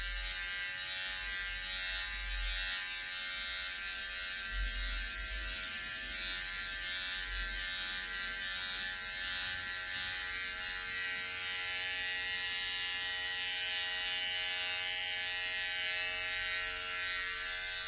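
Electric hair clippers running steadily, a continuous buzzing hum with a hiss over it.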